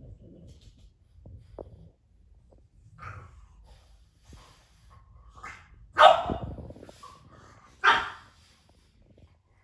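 A French bulldog and a Yorkshire terrier squabbling over a plush toy, with quieter noises early on and then two loud, sharp barks about two seconds apart in the second half.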